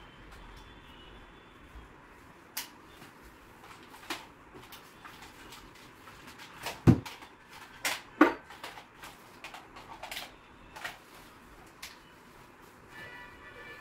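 Irregular clicks and knocks of things being handled, a dozen or so scattered through, the loudest a sharp knock about seven seconds in and a pair around eight seconds in.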